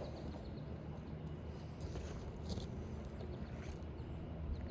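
Faint scraping and a few small clicks of asphalt roofing shingles being lifted and handled, over a steady low rumble.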